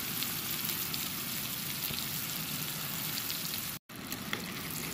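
Cornmeal-battered oysters deep-frying in hot oil in a small camp pot: a steady sizzle with many small crackles from the bubbling oil. It breaks off for a split second a little before the end.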